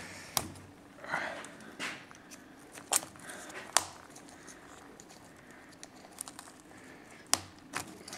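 Hands working at the tool holder of a Makita SDS-Max demolition hammer: about five sharp metal clicks and taps spread through, over the rustle of a cloth rag.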